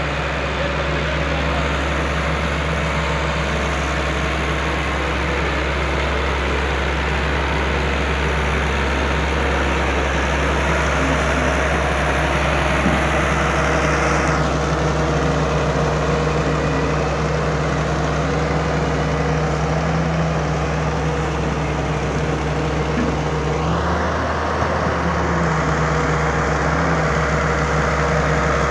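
Heavy diesel engine of a Hitachi wheeled excavator running steadily with a low, even hum, its note shifting briefly a few seconds before the end.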